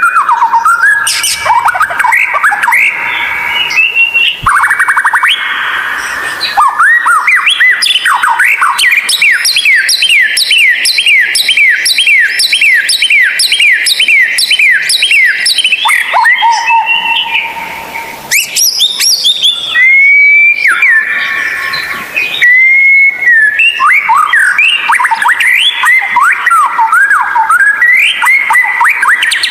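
White-rumped shama singing loudly: varied clear whistles and quick repeated rising notes, with a long, fast, even run of the same note in the middle.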